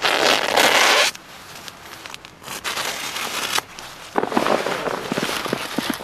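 A zipper pulled in one long stroke lasting about a second, followed by rustling and crackling with scattered clicks as camping gear is handled.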